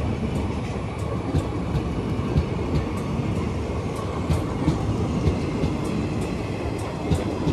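Passenger coaches of an express train rolling past at speed: a steady rumble with scattered sharp clicks from the wheels on the rails.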